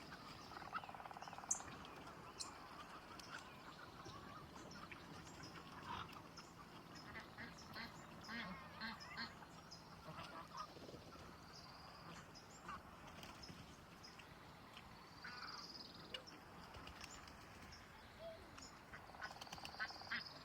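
Faint, scattered calls of farmyard birds, short calls and chirps coming irregularly throughout.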